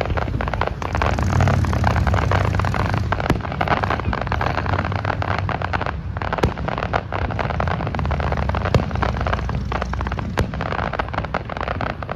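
Fireworks display: dense, continuous crackling with sharp single bangs every couple of seconds over a low rumble.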